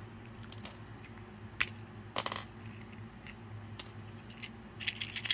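Plastic shell pieces of a small Hatchimals toy egg clicking and tapping as they are handled and picked apart. There are light scattered clicks, a short cluster about two seconds in, and a quicker run of clicks near the end.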